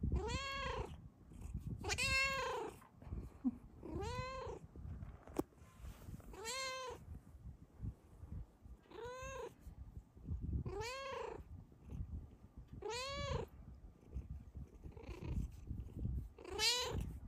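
Snow Lynx Bengal cat giving about eight short, contented meows, each rising and falling in pitch, roughly every two seconds, over a steady low purr while being stroked.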